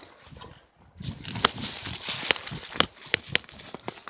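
Bicycle jolting and rattling over a rough dirt trail at speed: tyre noise with a string of sharp knocks from the bumps, quieter for about the first second.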